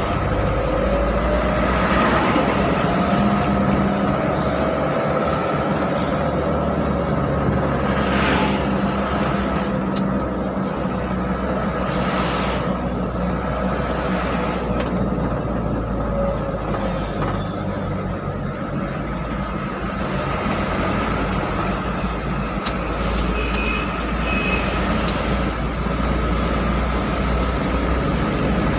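Steady engine and road noise of a vehicle being driven, with a constant whine running through it.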